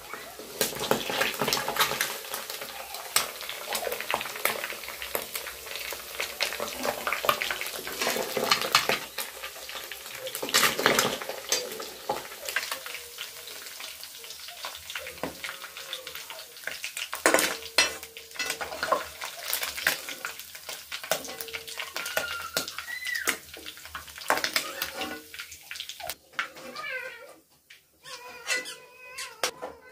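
Metal spatula scraping and clinking in a kadai of hot oil and against a steel plate as fried small fish are lifted out, with the oil sizzling, the sizzle fading in the second half.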